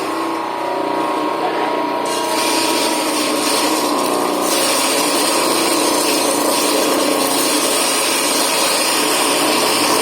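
Chili grinding machine for powdering dry chili, running steadily: a constant machine hum with a few steady tones and a hiss over it.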